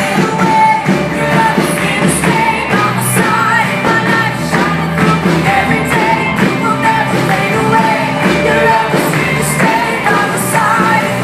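A live rock band playing a song, with two singers over electric guitars, drums and keyboards.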